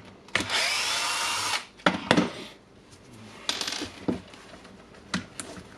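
Bosch GBH 2-26 rotary hammer drill run briefly on the trigger for about a second, then several sharp clicks and a short second burst as the tool is handled.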